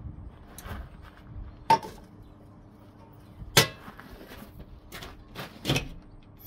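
A handful of sharp knocks and clunks, about six in all, spaced irregularly. One rings briefly about a second and a half in, the loudest comes about halfway, and a quick cluster falls near the end. A faint steady hum runs underneath.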